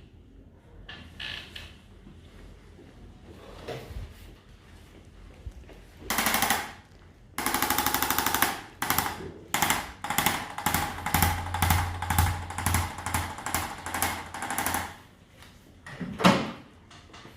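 Handheld percussion device chattering in a fast mechanical rattle against the back. It runs once for about a second and a half, then in a string of short bursts about two a second. A single sharp knock comes near the end.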